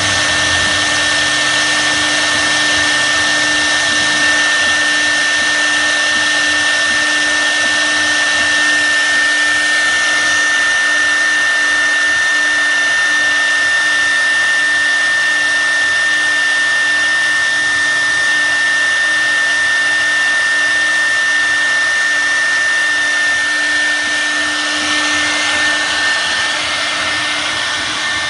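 CNC router spindle running at a steady high-pitched whine while its bit cuts into a log turning on the rotary axis, with a rough, continuous cutting noise. The whine fades out near the end.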